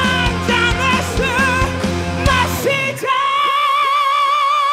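Live rock band playing with drums and a wavering high vocal line. About three seconds in, the drums and bass stop, leaving a single held note with vibrato.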